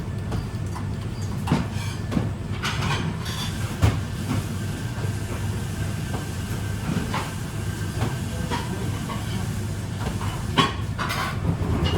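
Restaurant kitchen noise: a steady low machine hum with scattered clinks and clatters of pans and utensils.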